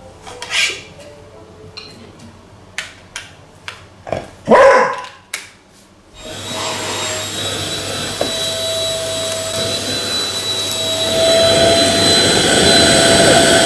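A few sharp handling clicks and one loud dog bark, then about six seconds in the Neabot P1 Pro pet-grooming vacuum switches on and runs steadily with a high motor whine.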